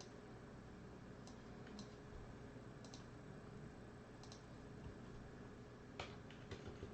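A few faint, scattered clicks over a low steady hum, coming closer together near the end.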